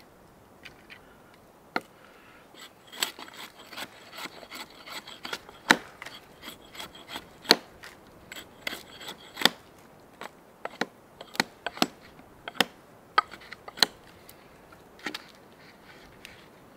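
Hatchet carving a point on a stick of wood: a run of irregular sharp chopping and shaving strokes of the steel head biting into the wood, with scraping between them. The strokes come thickly through the middle and thin out near the end.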